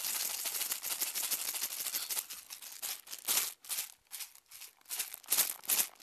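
Homemade shaker toy made from a green cardboard tube, rattling as it is shaken: steadily for about the first two and a half seconds, then in short separate shakes.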